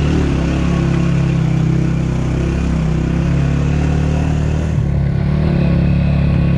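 Motorcycle engine running steadily under way on a rough gravel track. A hiss sits above the engine note and eases a little about five seconds in.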